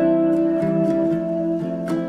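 Instrumental background music: a soft plucked-string melody, with new notes struck about every half second.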